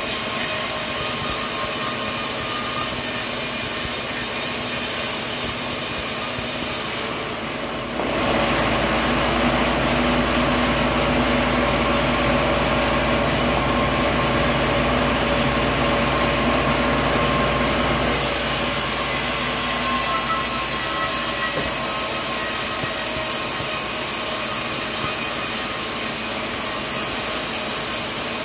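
Sawmill saw running and cutting a coconut log: a steady machine sound of several held tones over a rasping noise. About eight seconds in it turns louder and deeper, with a low rumble, and near eighteen seconds it goes back to the brighter, higher sound.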